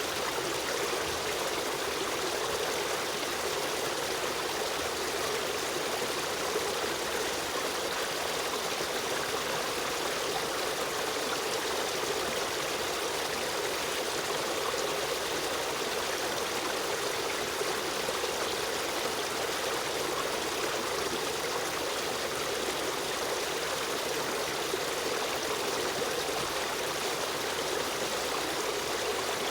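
A river stream running steadily: continuous rushing and trickling water.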